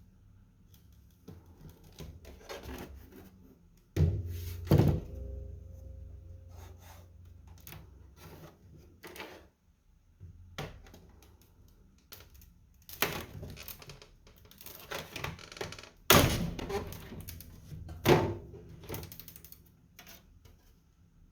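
Hard objects being handled: a series of knocks and thunks with smaller clicks and rustles. Two loud thunks come about four seconds in, and two more about two-thirds of the way through.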